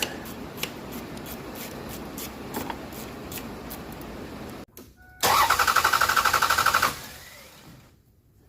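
A 1997 Toyota's engine cranking on the starter motor, a fast even pulsing for just under two seconds, that stops without the engine catching: the crank-no-start fault. A steady hiss comes before it.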